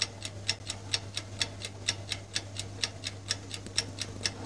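Countdown-timer sound effect: a clock ticking fast and evenly, about six ticks a second, over a faint steady low hum.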